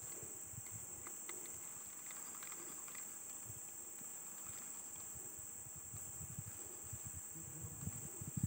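Insect chorus: one steady high-pitched drone, with soft low thumps in the last couple of seconds.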